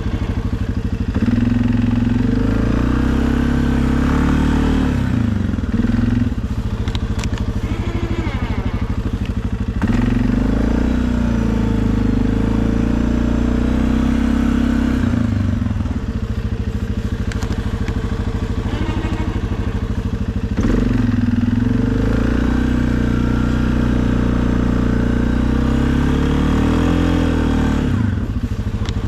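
2020 Suzuki KingQuad ATV's single-cylinder engine running under load while plowing snow, its pitch rising and falling in three long cycles, with some clatter.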